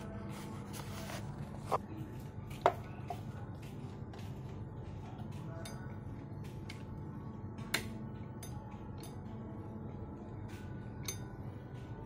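Old Singer hand-crank sewing machine's mechanism clicking and clattering as it is worked by hand, with irregular light ticks and three sharper metallic clinks that ring briefly, the loudest about a third of the way in.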